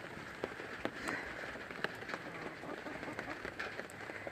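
Steady rain falling, an even hiss with scattered sharp taps of drops striking a surface.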